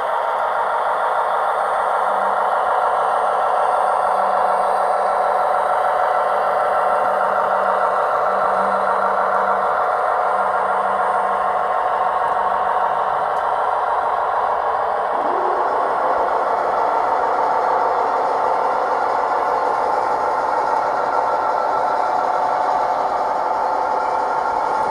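Gauge 1 (1:32) model goods train, a Dingler BR 261 diesel locomotive hauling tank wagons, rolling steadily along the track: a continuous clatter and rumble of metal wheels on rails, with a faint low hum in the first half.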